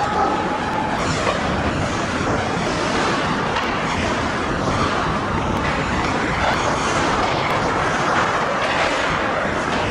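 Steady, even din of an indoor ice hockey rink during play, a constant rushing hiss with no clear events.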